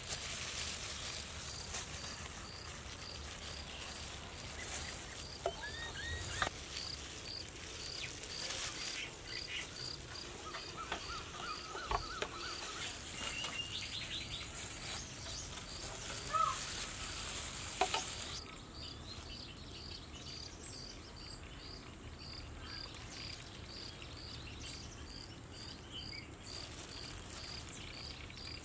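Cricket chirping steadily in evenly spaced high chirps, with a few short bird calls now and then and a couple of faint knocks. A background hiss drops away about two-thirds of the way through.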